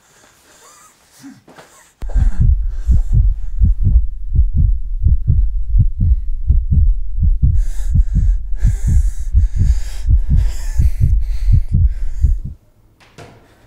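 Loud, fast heartbeat sound effect: deep, evenly spaced thumps several times a second, starting abruptly about two seconds in and cutting off suddenly near the end.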